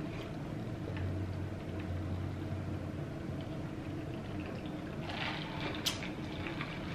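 A person drinking from a glass jar of iced drink held to the mouth, swallowing close to the microphone, with a short breath and a sharp click near the end as the jar comes down.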